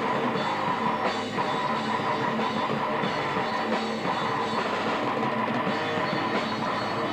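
Rock band playing live: a drum kit with cymbal hits and an electric bass guitar, in a loud, steady wall of sound.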